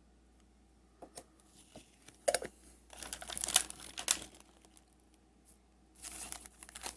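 Plastic packaging and foil booster packs crinkling in irregular bursts as they are handled, after a few light clicks about a second in.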